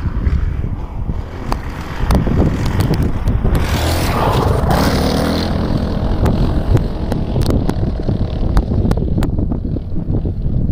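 Wind buffeting the microphone of a moving motorbike, with the bike's engine running under it and scattered sharp ticks; the rush swells for a second or two near the middle.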